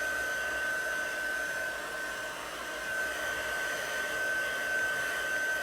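Hand-held hair dryer blowing steadily, drying wet chalk paste, with a constant thin high whine over the rush of air.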